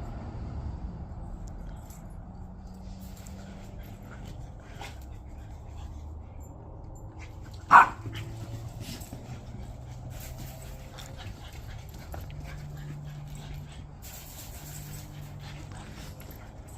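A dog gives one short, sharp bark about halfway through, over low background noise.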